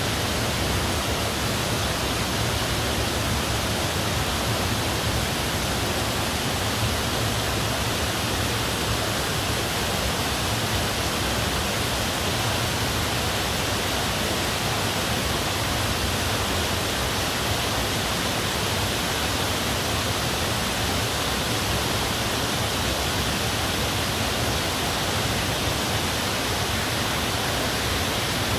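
Steady rush of stream water spilling over rocks, an even unbroken noise throughout.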